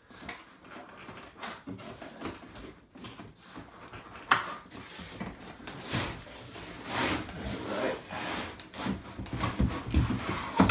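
Cardboard scraping and rubbing as the inner cardboard packaging of a monitor is slid out of its outer box, in several drawn-out strokes, with one sharp knock about four seconds in.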